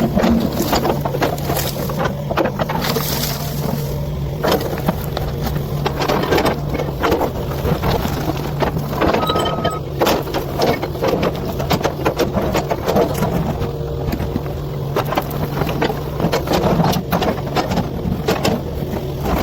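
Excavator's diesel engine running steadily under load, with repeated knocks and scrapes of the bucket digging through earth and rock.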